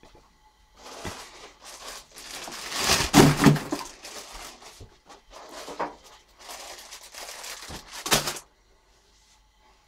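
Plastic bag rustling and crinkling as it is handled, in irregular bursts that are loudest about three seconds in and stop near the end.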